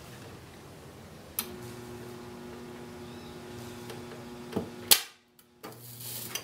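Homemade spot welder built from a microwave-oven transformer, welding thin wire. A click about a second and a half in sets the transformer buzzing steadily for about three and a half seconds, ending in a sharp snap; a shorter buzz follows near the end as the joint smokes.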